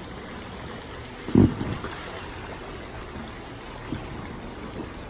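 Steady splashing trickle of water from a pool's wall fountain pouring into the pool, with one loud, low thump about a second and a half in as the big inflatable flamingo float is shoved onto the water.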